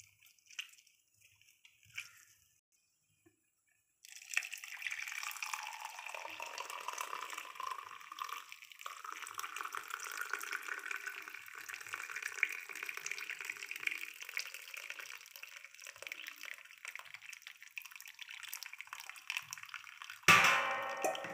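A few faint drips, then from about four seconds in a steady stream of aavarampoo tea pours through a steel mesh tea strainer into a glass, splashing, its pitch rising a little as the glass fills. Near the end a sudden louder sound with a steady pitch cuts in.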